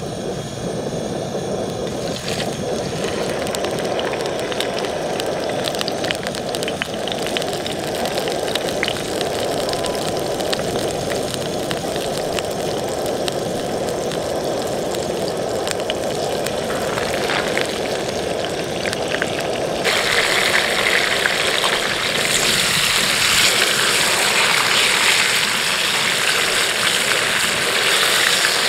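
Whole trout frying in hot oil in a pan on a portable camp stove: steady sizzling with scattered crackles over the stove burner's constant roar. About twenty seconds in, the sizzle turns louder and hissier as more fish goes into the oil.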